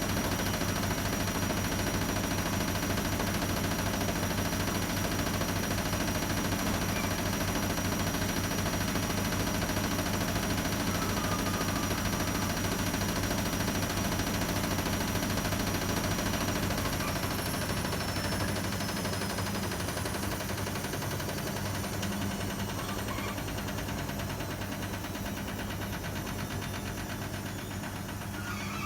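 Hotpoint WMA30 washing machine spinning with an unbalanced load: a steady hum with a high whine. About two-thirds of the way through the whine drops in pitch and the spin slows and quietens.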